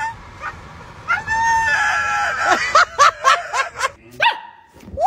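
Dogs vocalising: one long held call about a second in, then a quick run of short barks and yips, and another short yelp near the end.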